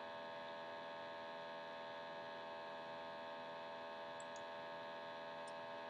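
Faint steady electrical hum of the recording setup, with no speech, and two faint tiny ticks in the second half.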